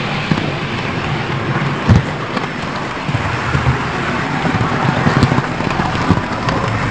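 Model train rolling along the layout's track, a steady rolling noise with a few short knocks, the clearest about two seconds in.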